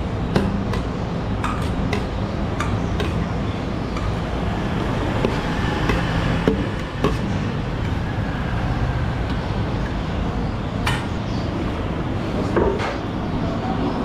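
A metal ladle clinking and scraping against a large steel serving tray and a bowl as broth is ladled out, in scattered sharp clinks, over a steady low rumble of street traffic.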